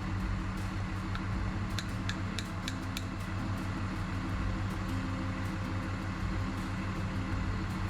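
Steady low mechanical hum, with several faint light clicks in the first three seconds.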